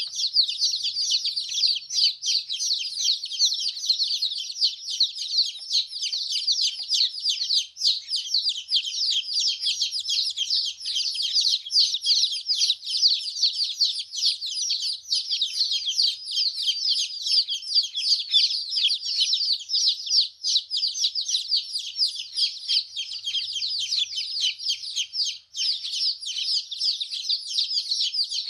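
A brood of newly hatched chicken chicks peeping nonstop, many short high-pitched peeps overlapping without a break.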